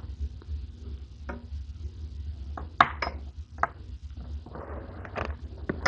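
Small metal parts of an Iwata Neo CN airbrush being handled and set down on a cutting mat: a handful of separate light clicks and clinks, the loudest nearly three seconds in, with a brief rustle about a second before the end. A steady low hum runs underneath.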